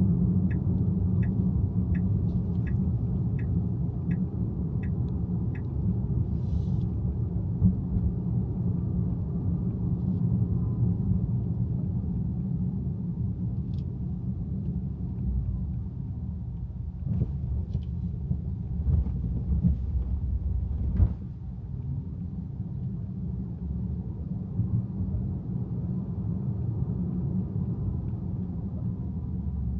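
Car driving on city roads: a steady low rumble of road and engine noise. For the first five seconds or so a regular ticking, about one and a half ticks a second, runs over it, and a few brief knocks come in the second half.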